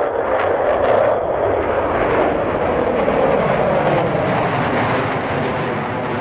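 Jet noise from an F-15 fighter's twin turbofan engines as it flies a display pass overhead. The loud, continuous rush eases off slowly near the end.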